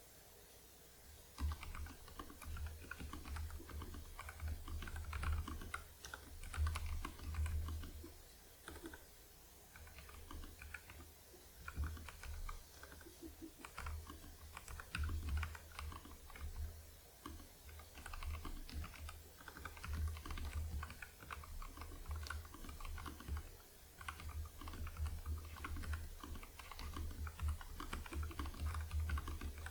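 Typing on a NuPhy Air75 low-profile mechanical keyboard with lubed Gateron Red linear switches and a taped case: a steady stream of rapid soft keystrokes, with short pauses now and then. It starts about a second and a half in.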